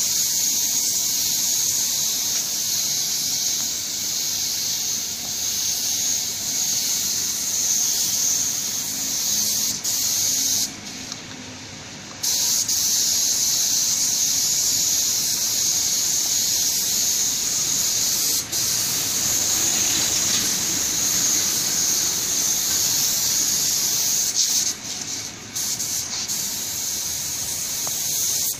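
Compressed-air paint spray gun spraying paint with a steady hiss. The trigger is let off for about a second and a half about eleven seconds in, and again briefly a few times near the end.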